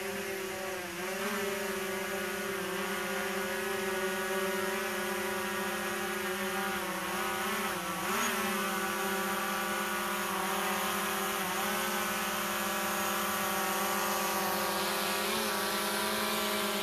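Quadcopter drone's propellers buzzing steadily as it hovers, with a few brief dips in pitch as the motors adjust.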